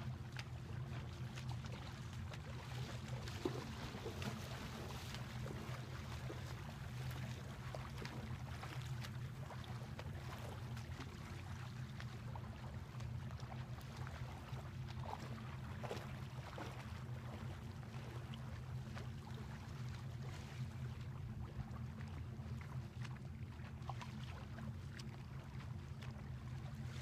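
A steady low drone with a faint wash of small waves lapping at the shoreline.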